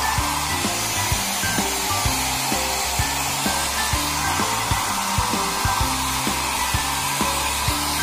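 Handheld electric hair dryer blowing steadily, over background music with a regular drum beat.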